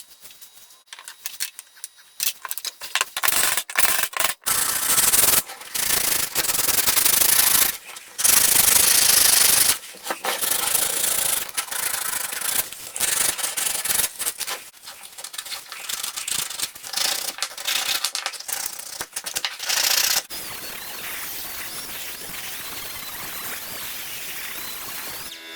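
Sandpaper rubbing on wood in uneven back-and-forth strokes of a second or two, as a wooden part is hand-sanded. In the last five seconds this gives way to a steady, even hiss.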